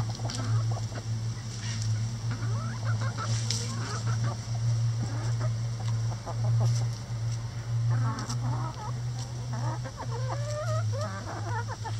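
Backyard chickens clucking, with short wavering calls coming in bunches, the busiest in the last few seconds, and a few sharp taps, over a steady low hum.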